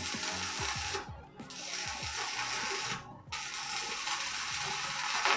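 Electric arc welding hissing and crackling in three runs of a second or two each, stopping briefly between them, over background music.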